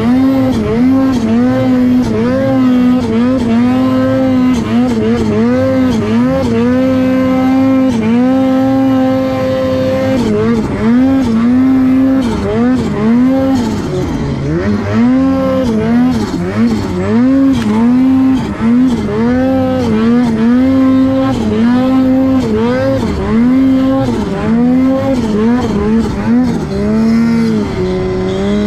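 Ski-Doo turbo snowmobile engine running hard through deep powder, its note held high and repeatedly dipping and climbing back as the throttle is feathered. The note drops lower near the end.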